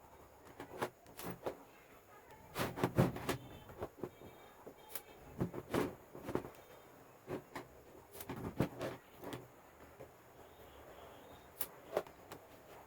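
Scattered clicks and knocks of hand tools and plastic and metal parts being handled as an angle grinder is taken apart. They come singly and in short clusters, with a bunch of quick knocks about three seconds in.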